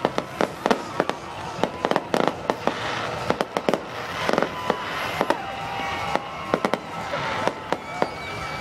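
Fireworks going off in a rapid barrage, sharp bangs and crackles at irregular intervals, several a second.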